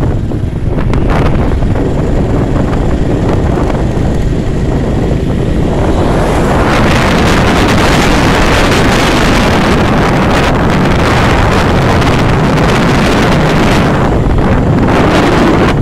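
Heavy wind rushing over the microphone while riding a Honda Pop 110i motorcycle, mixed with the scooter's running. The rush grows louder and brighter about six seconds in.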